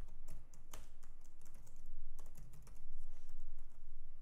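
Typing on a computer keyboard: a run of irregularly spaced keystrokes.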